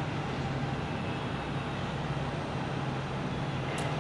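Hot air rework station blowing a steady rush of air with a low hum, reflowing the solder under a replacement gamma IC on an LED TV panel board. A brief light tick comes near the end.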